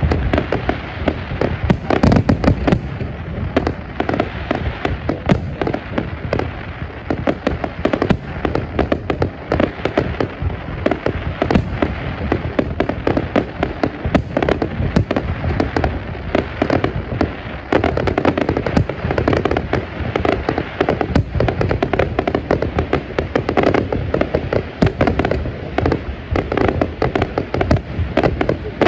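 Aerial fireworks display going off as a dense, continuous barrage of overlapping bangs and crackles.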